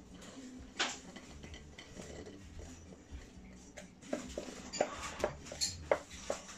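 A kitchen utensil scraping and tapping against a glass mixing bowl as thick cake batter is poured out into a loaf tin: light clicks and scrapes, a sharper click about a second in, and a quicker run of taps near the end.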